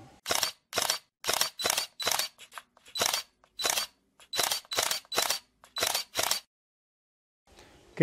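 Camera shutter clicks, about a dozen sharp snaps fired in an irregular series, some in quick pairs, the sound of a single-lens reflex camera taking shots.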